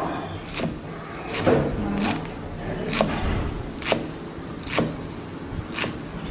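Cleaver chopping leafy greens on a wooden cutting board: about seven sharp strokes, roughly one a second, each a knock of the blade through the stems onto the wood.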